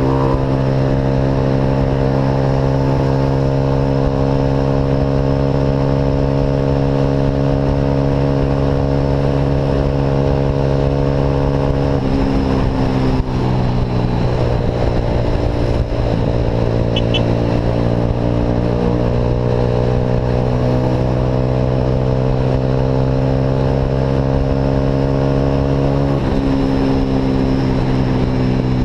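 Motorcycle engine running through an aftermarket Atalla exhaust, a steady droning note at cruising revs. Partway through, the pitch drops and wavers for a few seconds as the revs change. It then holds steady again and shifts once more near the end.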